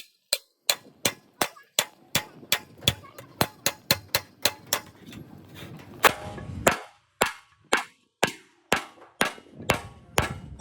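Hammer striking metal in a steady run of blows, about three a second, each with a short ring, with a brief noisy stretch about six seconds in.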